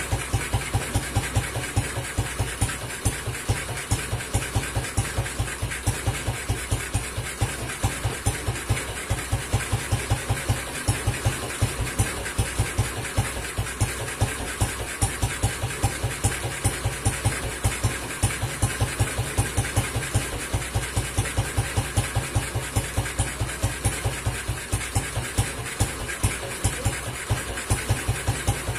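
Classic BSA motorcycle's single-cylinder four-stroke engine idling on its stand, a steady, even run of exhaust beats at an unchanging pace.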